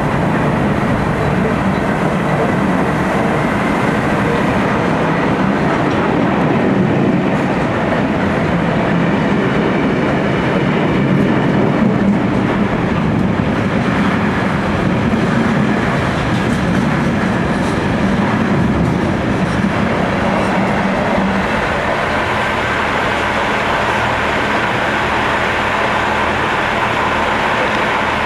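Wagons of a ballast train rolling past close by: a loud, steady clatter and rumble of steel wheels on the rails, easing a little about two-thirds of the way through.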